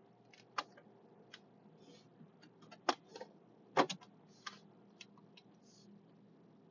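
Irregular clicks and taps, a dozen or so at uneven intervals, the loudest about three and four seconds in, mixed with a few short scraping rustles.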